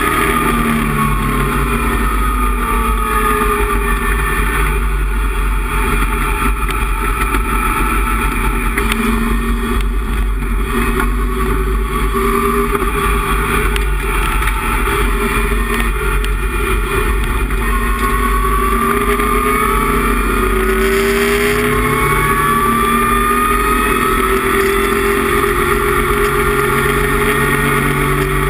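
Datsun 260Z race car's straight-six engine heard from inside the cockpit at racing speed. The revs fall over the first few seconds, then climb twice in the second half, with a gear change a little over two-thirds of the way through.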